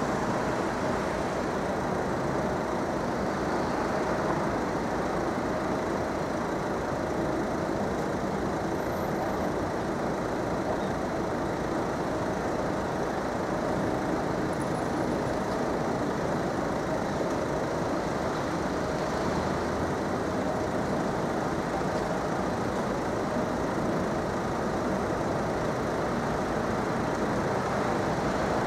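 Steady street traffic noise: a continuous rumble and hiss that stays level, with no distinct events.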